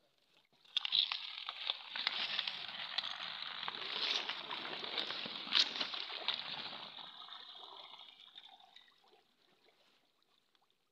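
Hands sloshing and splashing in shallow muddy water while groping for fish, with a few sharper splashes. It starts about a second in and fades away over the last few seconds.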